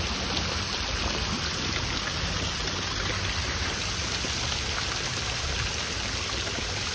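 Fountain jets splashing steadily into a stone basin, an even rush of falling water heard up close.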